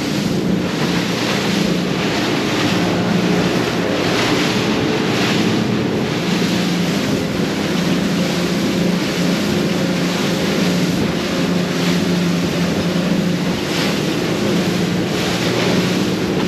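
Boat's outboard engines running steadily at cruising speed with a constant hum, under the rush of water and spray past the hull and wind buffeting the microphone.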